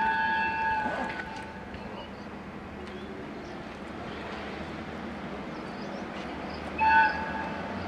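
An approaching train's locomotive horn. A long blast fades out about a second in, then the approaching train rumbles, and a short, loud horn blast sounds near the end. This is the driver warning a fan who stood beyond the yellow line on the platform.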